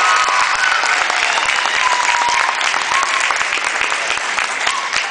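Audience clapping after a dance performance, with a few cheering voices in the first half; the applause eases off slightly toward the end.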